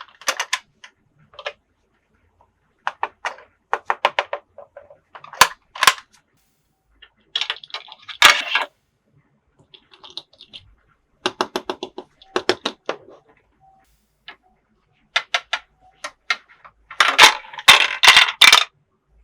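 Hard plastic toy pieces clicking and clattering as they are handled and set down, in short scattered clusters of clicks, with a louder quick run of clatter near the end.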